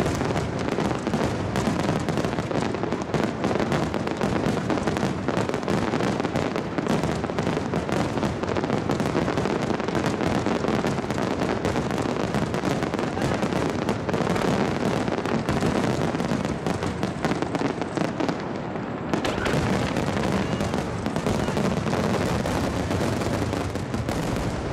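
Fireworks star mine finale: a dense, continuous barrage of shell bursts and crackle, with bangs following one another too fast to separate, echoing off the surrounding hills. The barrage eases for a moment about three-quarters of the way through, then picks up again.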